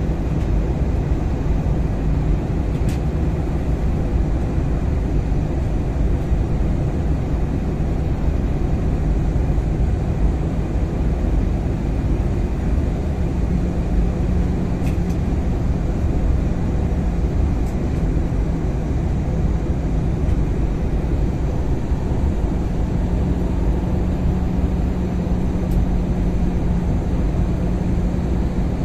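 Steady cabin noise of an Airbus A320-family airliner in flight: the jet engines and airflow heard from a window seat as an even rumble. An engine hum runs through it and steps up slightly in pitch a little before halfway, and again about three-quarters of the way through.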